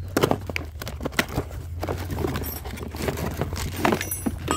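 Cardboard box and its paper insert and plastic wrapping being handled while unpacking a trimmer head: irregular rustles, crinkles and sharp taps and knocks.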